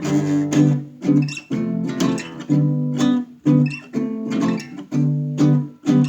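Acoustic guitar strummed in a steady rhythm, about two strums a second, playing the opening of a song.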